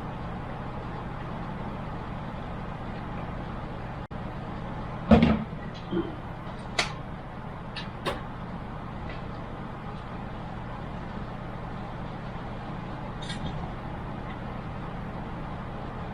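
A steady low hum throughout, with one loud thump about five seconds in and a few sharp clicks over the next three seconds, like hardware being handled and set down.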